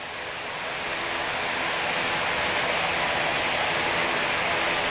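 Steady rushing noise that swells over the first two seconds and then holds level, with a faint low hum beneath it.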